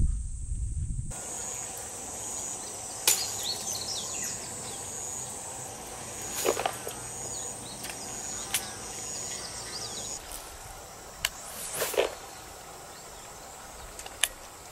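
Insects trilling in a steady, high, pulsing chirp, with scattered bird calls and a few short sharp clicks and swishes from fishing tackle being cast.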